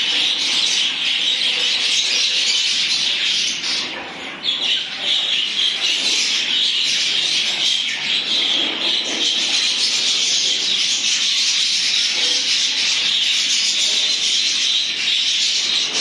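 A flock of budgerigars chattering and chirping together in a continuous dense twitter, briefly thinning about four seconds in.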